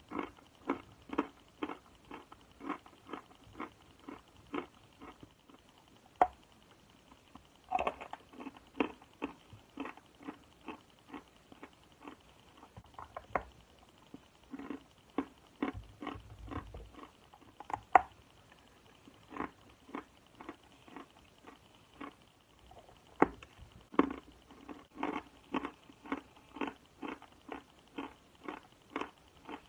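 Close-miked chewing of dry edible chalk: crisp crunches at about two chews a second, with a few louder, sharper bites.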